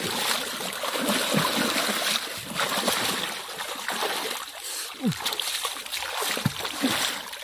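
Hands splashing and churning through shallow muddy water while digging into the mud: an irregular run of splashes throughout, with a few short falling gurgles past the middle.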